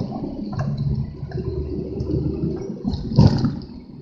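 Gusty wind buffeting the microphone: an uneven low rumble that swells into a louder gust about three seconds in, then dies down.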